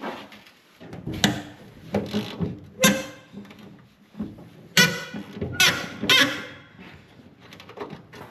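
Metal hand tools clanking and knocking as old seatbelt bolts are worked loose: a handful of separate sharp knocks and clinks, several of them ringing briefly.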